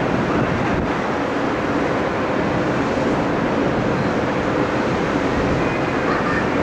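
Steady rushing wind noise on the microphone on a ship's open deck at sea, an even roar with no breaks.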